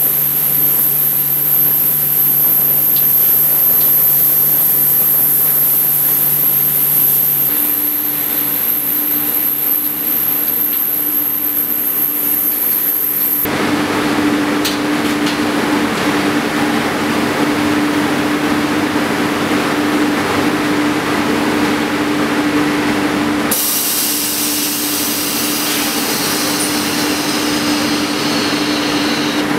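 Jensen multistage ultrasonic parts-washing line running: a steady machine hum with a high, thin whine. A little under halfway it changes to a louder, even hiss of moving air and water over the hum.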